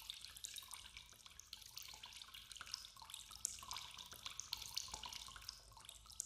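Faint, irregular patter of water drips, a scatter of small ticks over a low hum.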